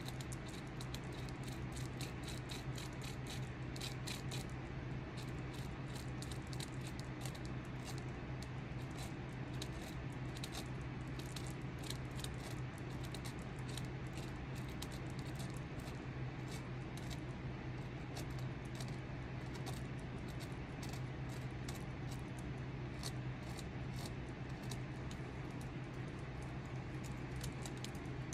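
Hand carving tool cutting and scraping small shavings from a wooden walking stick: many short, irregular scraping clicks, over a steady low hum.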